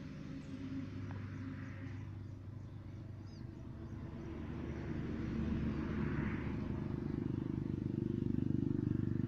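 A low engine hum running steadily, growing louder over the second half and fluttering rapidly near the end.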